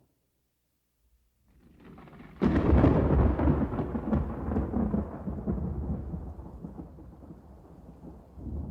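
Thunder: a low rumble builds, then a sharp crack about two and a half seconds in, followed by a long rumble that slowly dies away. A fresh rumble swells near the end.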